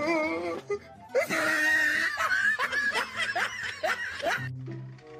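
Human laughter for about three seconds, loud and in rapid bursts, over background music.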